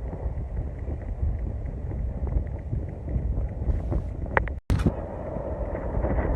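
Wind buffeting the microphone: a steady low rumble with gusts, cut off for an instant about two-thirds of the way through.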